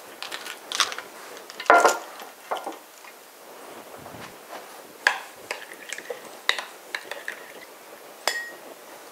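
Scattered clinks and knocks of glassware and kitchen items being handled, a couple of them short ringing glass clinks. Near the end a metal spoon clinks against a glass bowl while stirring a sauce.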